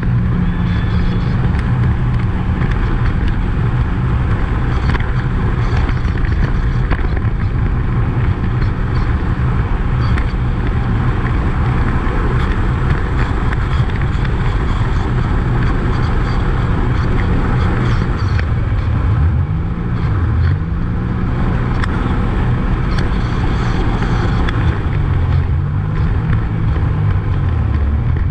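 Jet ski engine running at speed, with water spray and wind rushing past. In the second half the engine note dips and rises several times as the throttle changes.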